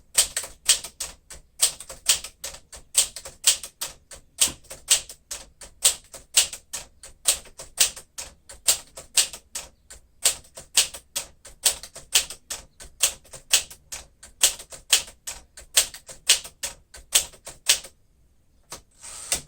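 1953 Smith-Corona Super manual typewriter typing a character test: a steady run of separate key strikes, about two to three a second, with the typebars hitting the platen. The strikes stop about a second and a half before the end, followed by one longer noise.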